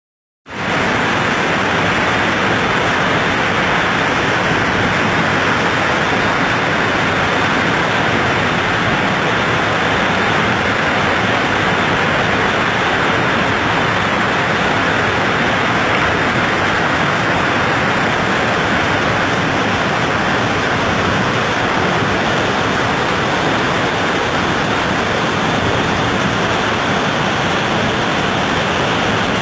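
Waterfall in heavy flood: a loud, dense, unbroken rush of water crashing down, with no change in level.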